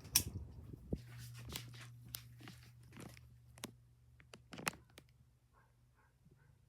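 Ceiling fan being switched into reverse: an irregular string of sharp clicks and knocks during the first five seconds, over a steady low hum from the fan's motor.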